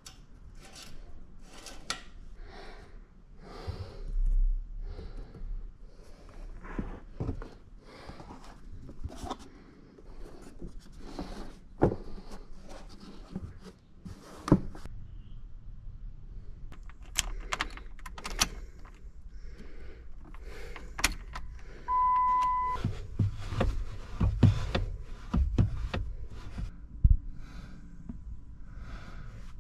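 Clicks and knocks of a Jeep Wrangler's plastic V6 engine cover being handled and pressed into place, followed by keys jangling and dull thuds. About two-thirds of the way through comes one short electronic chime.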